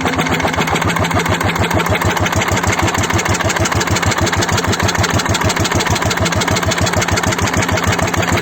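Dongfeng S1115 single-cylinder diesel engine running steadily after an overhaul, with a rapid, even firing beat.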